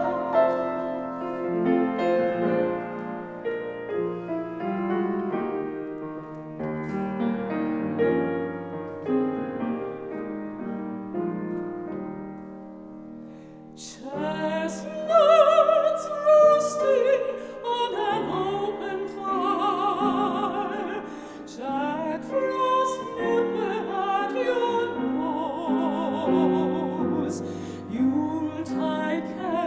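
A piano plays a solo interlude of held chords. About halfway through, women's classical voices come in singing an operatic-style Christmas song with wide vibrato, over the piano accompaniment.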